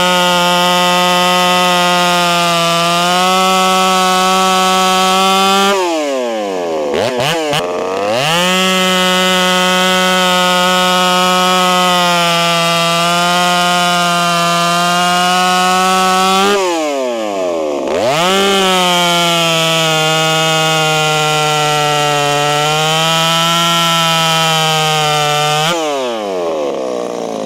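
Pipe-ported Stihl 026 two-stroke chainsaw with an Ironhorse expansion-chamber pipe, running flat out while cutting through a ginkgo log, holding a steady high pitch through each cut. Twice, about six and seventeen seconds in, the revs fall away between cuts and then scream back up. Near the end the engine drops back toward idle.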